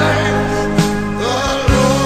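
Gospel music playing: a held melody line over steady bass, with drum hits.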